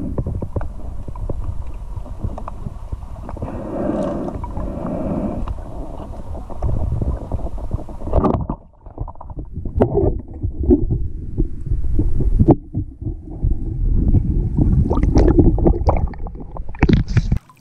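Muffled underwater sound picked up through a GoPro's waterproof housing while a snorkeler swims: a continuous low rumble with crackling and clicking of water moving against the housing.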